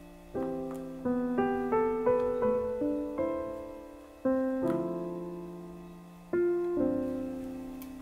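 Background piano music: notes and chords struck one after another, each ringing out and fading.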